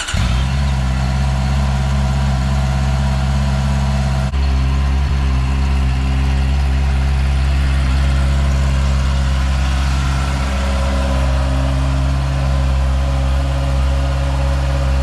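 Honda CBR 650R's inline-four engine idling steadily just after being started, with an even low hum.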